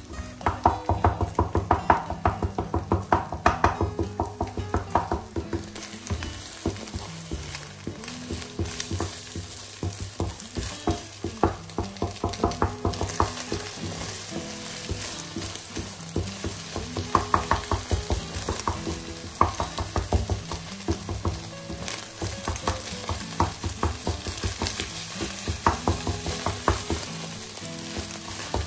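Scrambled eggs sizzling in a non-stick frying pan while a wooden slotted spatula stirs and scrapes them against the pan in quick, repeated strokes. The strokes are busiest in the first few seconds and again past the middle.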